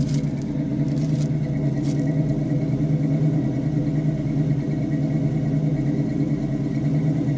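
1979 Oldsmobile Cutlass engine idling steadily, with a few light clicks in the first two seconds.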